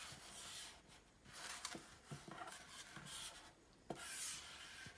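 Small paper cards being slid from a pile and set down one by one on a wooden tabletop: faint rustling rubs with several soft taps.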